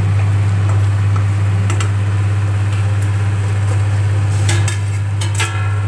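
Spatula stirring and scraping a frying masala paste in a stainless steel pot, with a few scattered clicks and a short ringing clink against the pot about five seconds in. A steady low hum runs underneath.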